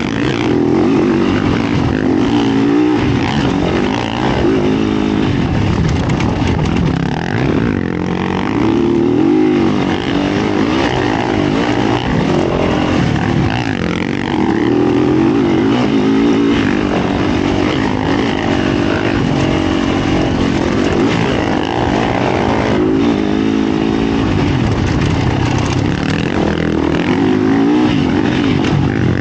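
Yamaha YZ450F dirt bike's 450 cc single-cylinder four-stroke engine being ridden hard, its pitch rising and falling every few seconds as the rider revs through the throttle and gears, over constant rushing noise.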